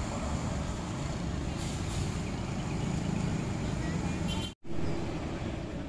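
Steady low rumble of bus engines running in a bus terminal yard. The sound cuts out completely for a split second about four and a half seconds in.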